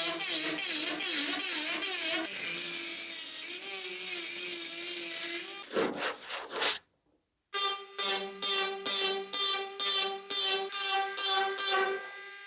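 A power tool runs for about six seconds, its whine rising and falling in pitch as it is worked, followed by a few sharp knocks. After a brief cut to silence, background music with plucked notes at a steady beat takes over.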